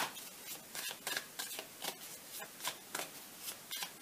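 A deck of tarot cards being shuffled by hand: a run of short card slaps, about two or three a second, the first the loudest.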